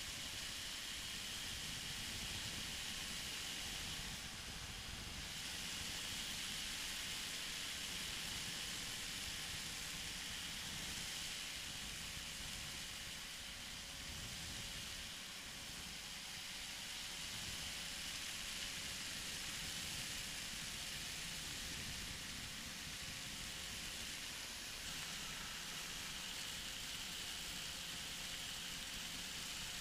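Steady in-flight noise of a flexwing microlight trike: an even rush of wind and hiss with a faint, steady engine drone underneath.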